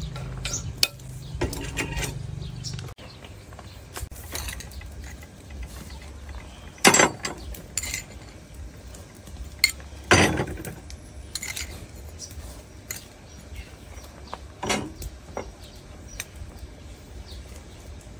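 Cooking utensils knocking and scraping against pots, chopsticks in a clay pot and a metal ladle in a steel soup pot, in scattered clinks. A few sharp knocks stand out, the loudest about seven and ten seconds in.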